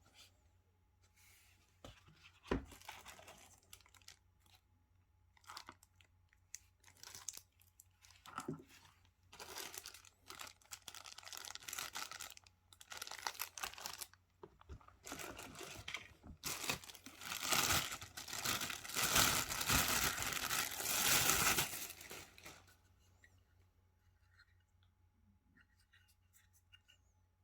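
Packaging being torn and crinkled by hand during an unboxing, in irregular bouts with a few sharp clicks. The longest and loudest stretch of tearing lasts about five seconds, two-thirds of the way through.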